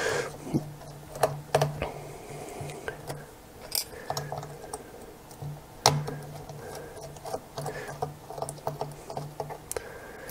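Light, irregular clicks and ticks of a precision screwdriver working the tiny screws out of a camera lens's metal mount, with one sharper click about six seconds in.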